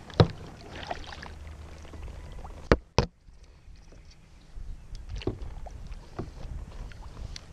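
Sharp knocks and clunks on a plastic fishing kayak as gear is handled, over a low steady rumble. Two loud knocks come close together about three seconds in, and single knocks come before and after.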